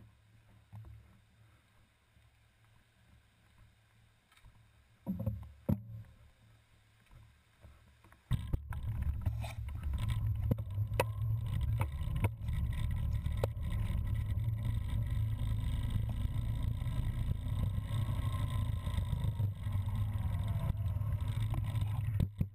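Cyclocross bike riding over a slatted wooden footbridge: a steady low rumble of tyres and rushing air on the bar-mounted camera, with light knocks from the slats. The rumble starts abruptly about eight seconds in, after a quieter stretch with a couple of thumps.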